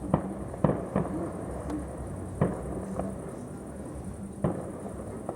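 Fireworks display going off: five sharp bangs at uneven intervals, three close together at the start, then two more spaced about two seconds apart.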